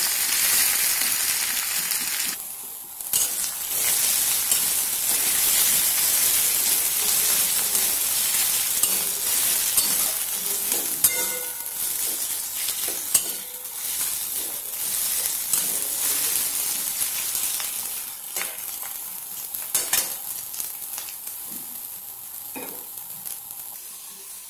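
Sliced onions sizzling as they fry in hot mustard oil in a metal kadai, stirred with a metal spatula that scrapes and clicks against the pan now and then; the onions are being fried until lightly browned. The sizzle dips briefly about two and a half seconds in and grows quieter toward the end.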